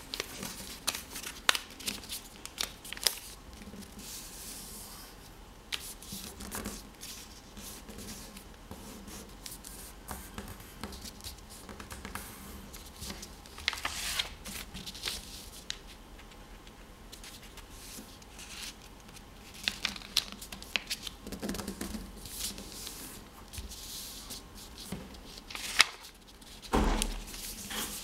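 A sheet of white paper being folded by hand into a paper airplane: irregular rustling, with crisp clicks and scrapes as fingers press and run along the creases. A louder rustle comes about halfway through as the sheet is lifted and turned, and a sharp click comes near the end.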